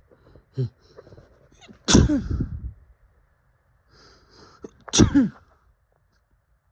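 A person sneezing twice, about three seconds apart, each sneeze a loud sudden burst that falls away in pitch. Each is led in by short, catching breaths.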